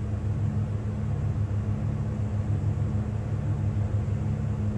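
Seismic survey vessel's engines and machinery running with a steady low hum, heard on board.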